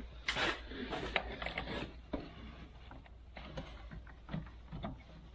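Irregular mechanical clicks and scrapes of tools and parts being handled during brake work, with a louder rustling scrape about half a second in.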